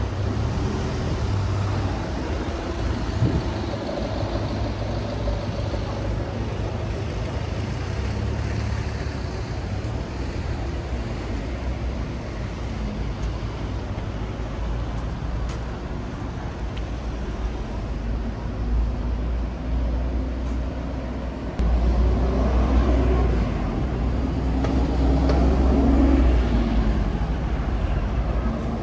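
Busy city road traffic: a steady low rumble of cars and buses going by, growing louder about three quarters through. Passers-by talking near the end.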